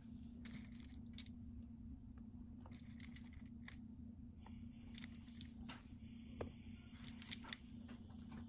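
Low steady hum with faint scattered ticks of tweezers handling small plastic balls. A sharper click comes about six and a half seconds in, where a ball dropped through the light-barrier frame lands on the surface below, and a couple more light clicks follow.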